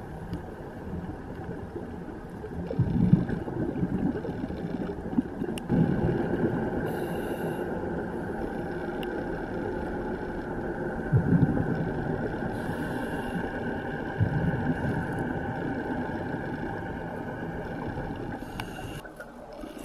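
Underwater sound of a scuba diver breathing through a regulator: four rushing bursts of exhaled bubbles a few seconds apart, over a steady hum.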